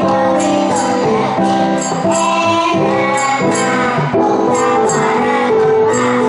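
A group of children singing into microphones over recorded backing music, with a jingling tambourine-like beat about twice a second.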